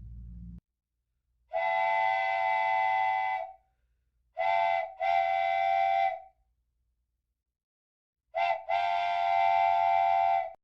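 A whistle sounds three long, steady, flat-pitched blasts, each a chord of several tones. The second and third blasts each open with a short toot.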